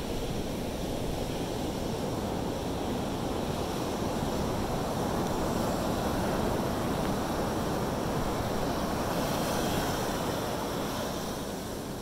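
Ocean surf breaking and washing up a sandy beach, a steady rush that swells a little in the middle, with some wind rumbling on the microphone.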